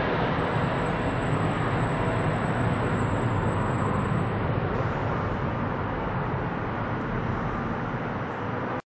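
Twin-engine Boeing 777 jet airliner in flight overhead, a steady low engine roar slowly fading as it flies away on approach, cut off abruptly near the end.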